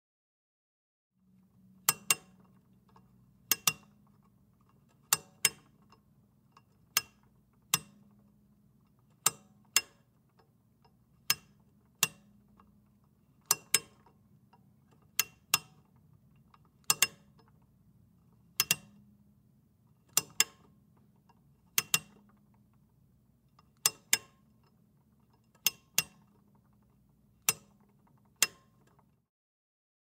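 A lamp's twist switch turned on and off over and over: sharp, bright mechanical clicks, many in quick pairs, every second or so, over a faint low hum.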